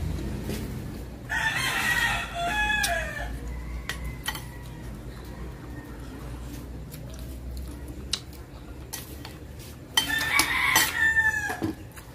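A rooster crowing twice, once starting about a second in and again near the end, each crow lasting about two seconds, with scattered light clinks of dishes and cutlery.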